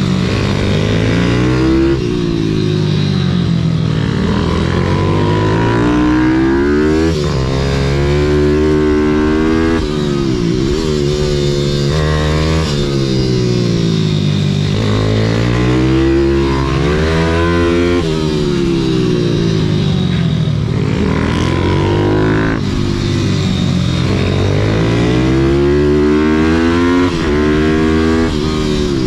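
YCF SM 190 Daytona pit bike's single-cylinder four-stroke engine at racing pace, heard from on board. The pitch climbs under throttle and drops sharply again and again as the rider shifts gear and backs off into the corners, over a steady rush of wind.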